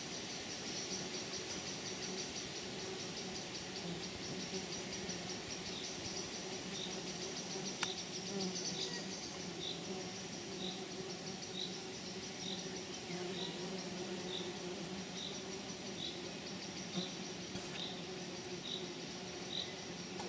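Insects trilling steadily in a continuous high buzz, with a short high note repeating about once a second from about six seconds in. A low steady hum and a single click near the middle.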